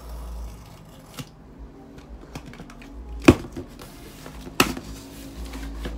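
A scalpel cutting open a cardboard shipping box: scattered small clicks and scrapes of the blade on the cardboard and tape, with two sharp loud clicks about three and four and a half seconds in.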